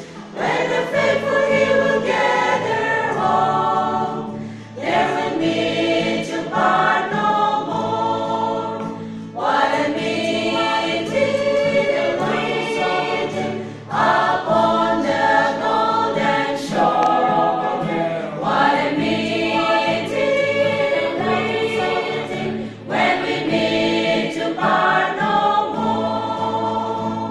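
Church choir singing a hymn together, the sung phrases broken by short pauses about every four to five seconds.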